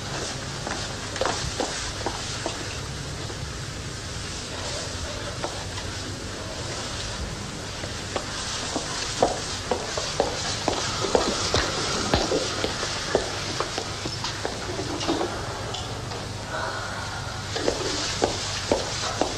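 Steady hiss and low hum of an old television soundtrack, with scattered sharp clicks and taps throughout, more of them in the middle and near the end.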